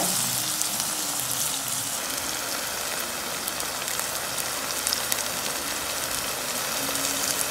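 Tomatoes, onions and green chillies frying in hot oil in a pan, a steady sizzle with fine crackles as the tomatoes soften.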